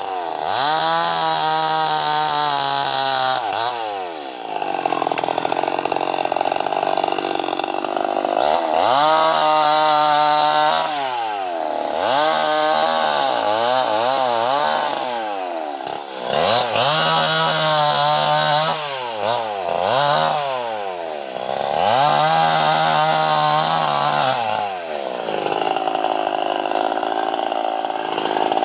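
Two-stroke chainsaw cutting mahogany, the engine revving up hard and working under load in the cut, then dropping back toward idle, over and over every few seconds.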